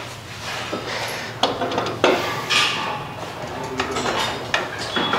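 Metal parts of a motorcycle rear wheel and hub clinking and knocking as they are handled and fitted back into place, with a few scattered sharp knocks.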